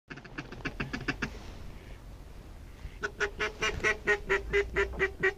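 Goose honking in quick, evenly spaced series: a short run of about eight honks at the start, then a longer run of about five honks a second from about three seconds in.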